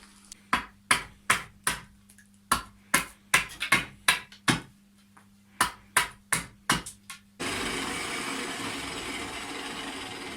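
Hand hammer striking about fifteen times in quick, uneven groups of blows. A little over seven seconds in the hammering stops, and a steady rushing noise starts abruptly.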